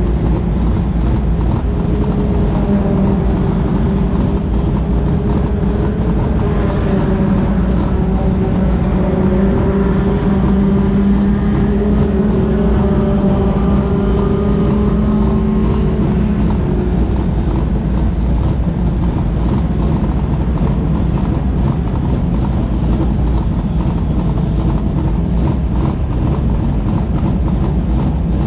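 Race car engines idling while stopped in line: a steady, loud low rumble. A held, slightly wavering engine note rides on top from a few seconds in until a little past halfway.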